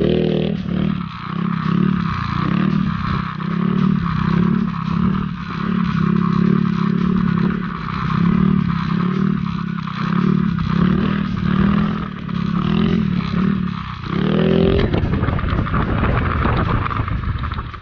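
Yamaha Mio scooter engine running, its note pulsing up and down in a quick, even rhythm. About fourteen seconds in it revs once, then a rushing noise, likely wind, takes over.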